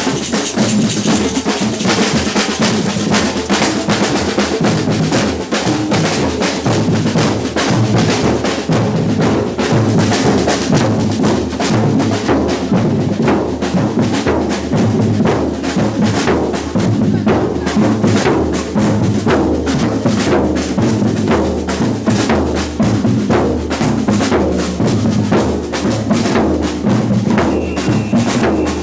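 Batucada percussion ensemble playing a steady, driving samba groove: deep bass drums pulsing beneath dense snare and hand-percussion strokes.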